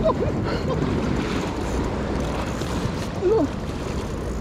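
Sea water washing against a shore rock, with wind buffeting the microphone. Twice there is a short strained vocal sound from the angler straining against a hooked fish: near the start and about three seconds in.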